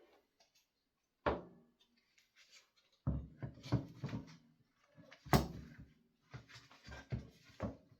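Side cover of an Echo leaf blower being fitted back onto the engine by hand: a single knock about a second in, then bursts of clattering and knocking, the loudest sharp knock a little past the middle.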